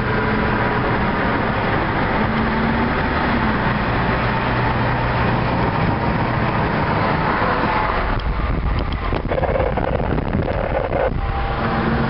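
Car engine and tyre noise heard from inside the cabin while driving along a highway, steady throughout, with a few light clicks about eight seconds in.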